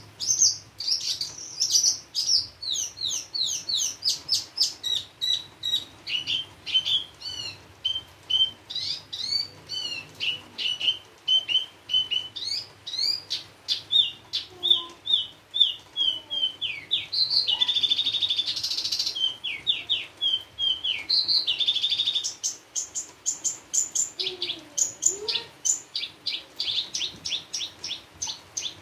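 Javan bush lark (branjangan) singing continuously: a rapid, unbroken run of varied chirps and whistled notes, the song full of mixed phrases, with a harsher buzzy stretch a little past the middle.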